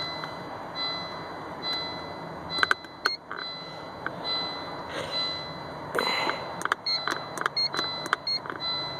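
Car electronics beeping with the ignition on: a Volvo's open-door warning chime and short electronic beeps, irregular at first and coming quicker in the second half, with a few sharp clicks.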